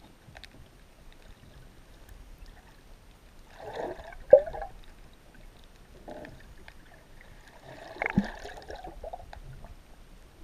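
Muffled water sloshing and gurgling heard through an underwater camera housing beside a boat hull, with two sharp knocks, about four and eight seconds in.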